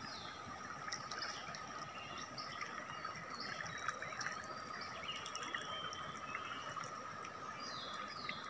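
Steady rushing wash of a swollen, muddy river's current flowing past the bank and through overhanging branches. A steady high tone runs underneath, and a few short, high, falling chirps come through near the start, around the middle and near the end.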